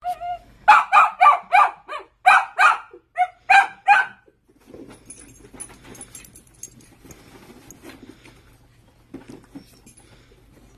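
A dachshund barking excitedly, about a dozen quick barks in the first four seconds. After that come softer shuffling and faint jingling.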